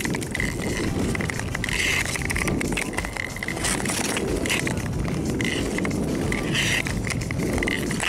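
Ice skate blades scraping and gliding over clear, bare lake ice, a steady hiss with many short sharp ticks.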